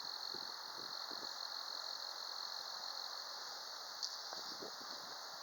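A steady, high-pitched insect chorus over the even hiss of wind moving through trees, with faint low gusts coming and going and one short chirp about four seconds in.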